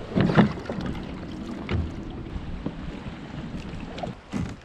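Wind buffeting the microphone over open water around a fishing kayak, with a few sharp knocks from gear being handled in the cockpit just after the start and again near the end.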